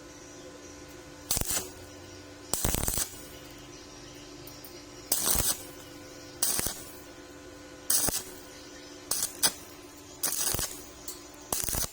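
Stick-welding arc on thin 1.2 mm steel square pipe, struck in short bursts of crackle about half a second or less each, about nine times, with pauses between them over a steady hum. The on-off arc is the stitch technique used to keep from burning through thin metal.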